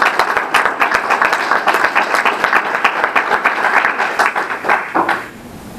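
Audience applauding, a dense patter of many hands clapping that thins out and dies away about five seconds in.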